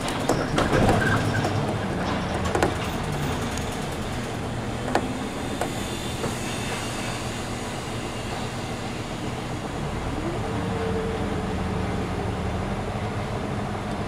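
City bus engine running at low speed, heard inside the cabin, with rattles and knocks from the bus body over the first few seconds. About ten seconds in there is a short rising whine that holds for about a second.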